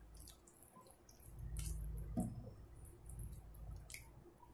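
Faint wet squishing and soft scattered clicks of hands rubbing thick masala paste onto fish pieces in a stainless steel bowl.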